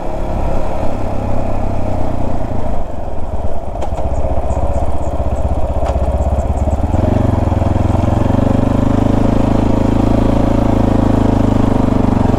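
Small motorcycle engine running unevenly as the bike is ridden slowly, then settling to a steady idle from about seven seconds in.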